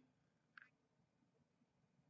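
Near silence: room tone, with one faint brief click about half a second in.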